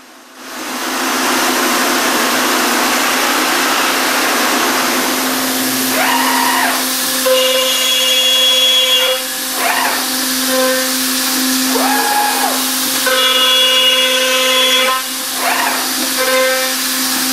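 Accu-Systems VX multi-spindle CNC machine drilling and routing closet panels: a loud rushing noise starts about half a second in over a steady hum. Spindle motors wind up in pitch, hold and wind back down several times, and twice a steady high whine holds for a second or two while a spindle cuts.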